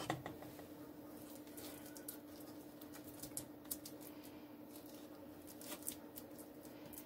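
Faint soft taps and scrapes of a wooden spoon dishing mashed potatoes from a saucepan onto a plate, over a steady low hum.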